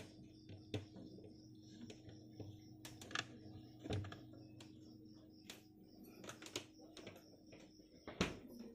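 Faint small knocks and clicks from handling a cake board on a refrigerator shelf, over a steady low hum. A louder knock comes near the end.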